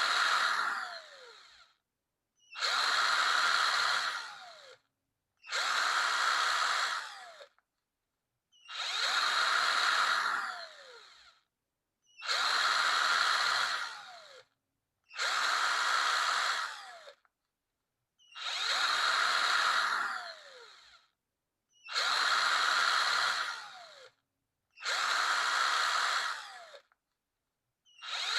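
Power drill run in short bursts of about two seconds each, roughly every three seconds, with silence between them. Each burst runs at a steady high whine, then the pitch falls away as the motor spins down after the trigger is released.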